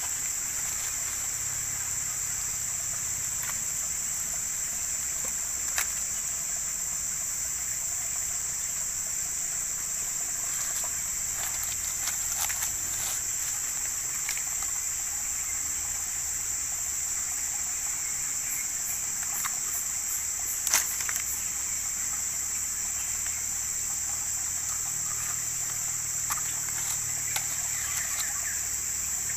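Steady high-pitched drone of insects. A few light clicks and rustles come from bamboo being handled on dry leaf litter, the sharpest a knock about 21 seconds in.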